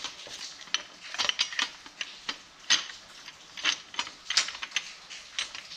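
Irregular metallic clicks and clinks of Ridetech coilover parts (spring, perch and hardware) being handled and fitted together during assembly.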